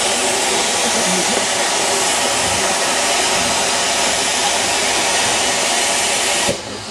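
Steam locomotive blowing off steam: a loud, steady hiss of escaping steam that cuts off suddenly near the end.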